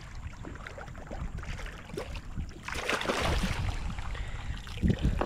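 A hooked fish thrashing and splashing at the water's surface beside a kayak as it is brought in and scooped into a landing net. The heaviest splashing comes about three seconds in, with a couple of low thumps near the end.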